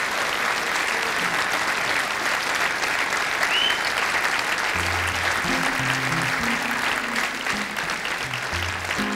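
Audience applauding steadily in a theatre. About five seconds in, a few short low notes from an instrument on stage sound under the clapping.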